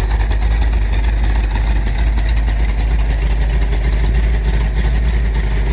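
1971 Dodge Challenger R/T's V8 engine idling with a steady low rumble.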